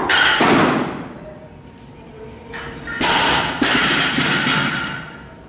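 Loaded barbell with bumper plates dropped onto a weightlifting platform: a thud and clatter echoing in a large gym hall at the start, and another loud crash about three seconds in.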